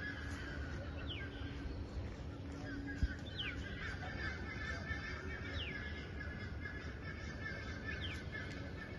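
Outdoor birdsong: a bird repeats a short call that slides downward in pitch, about every two seconds, over a steady background of noise. A single sharp knock comes about three seconds in.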